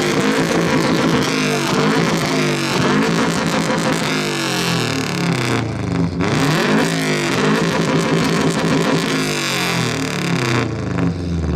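Subaru WRX's turbocharged flat-four engine revved hard through its exhaust, the pitch climbing and falling in repeated sweeps, with a short drop about six seconds in before it ends near the close. It registers about 110 dB on the judges' meter.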